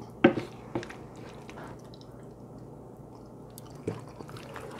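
A utensil stirring thick, creamy chicken pot pie filling in a cast iron skillet, making soft wet squishing sounds. There is a sharp knock of the utensil on the pan about a quarter second in and lighter taps near one second and near four seconds.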